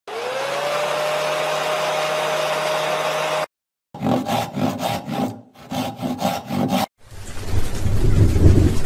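Intro sound effects: a hissing whoosh with a tone that slides up and then holds, cut off abruptly after about three and a half seconds; after a brief gap, about three seconds of rapid pulsing, then a swelling rushing noise near the end.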